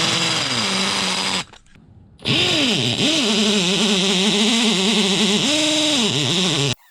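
Power drill with a rebar-rated concrete bit boring into a concrete floor, over a hole where a broken-off anchor is stuck. It runs in two bursts, a short one and then a longer one after a brief pause, the motor's pitch dipping and rising as the bit bites.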